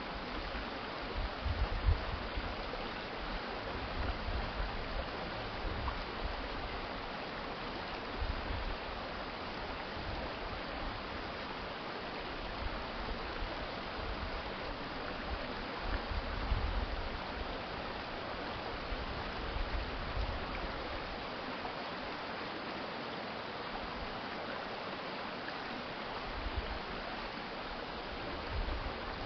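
Stream water flowing in a steady, even rush, with occasional low rumbles underneath.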